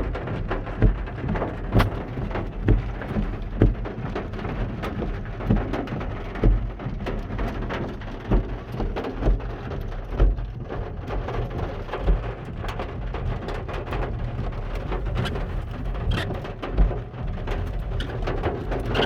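Rain falling, a steady hiss with many sharp drop impacts close by and irregular low thumps every second or so.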